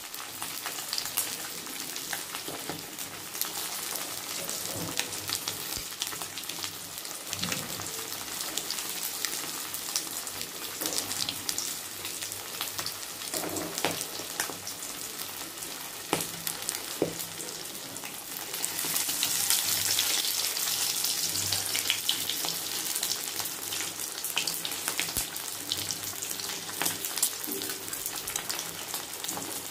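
Fish pieces coated in semolina (rava), cornflour and maida shallow-frying in hot oil in a kadai: a steady sizzle with scattered crackling pops, which swells louder about 19 seconds in and then settles.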